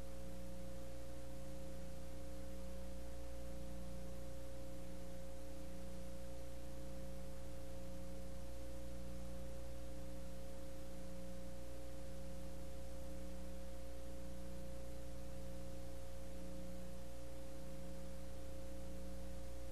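Steady electrical hum with a constant high whine and hiss, one low part of the hum pulsing on and off about once a second: mains hum and noise on the audio of a blank stretch of videotape.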